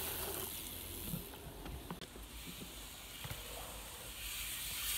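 BMX bike rolling along a packed-dirt trail: a steady hiss of tyres on dirt, with a few faint clicks.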